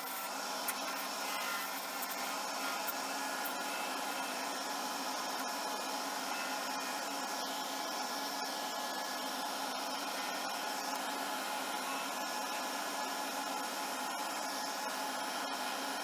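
Lathe spinning an Alumilite resin pen blank at about 3,000 rpm while a turning tool cuts it, a steady whir with the hiss of the cut.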